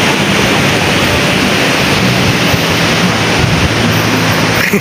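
Wind buffeting the microphone: a loud, steady rush of noise with no break.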